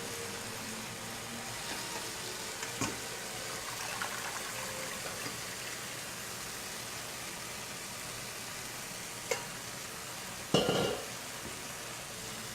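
Garlic and bean curd sizzling in hot coconut oil in a pan, a steady frying hiss. A few light clicks sound over it, and a louder clank with a short ring comes near the end.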